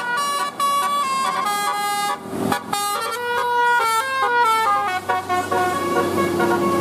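Bus telolet horn (Basuri multi-tone air horn) playing a quick melody, its loud notes stepping up and down in pitch every fraction of a second, with a short break about two and a half seconds in.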